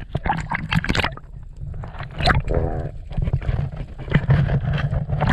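Water sloshing and gurgling around a camera dipped just below the surface: a steady low rumble broken by irregular knocks and splashes.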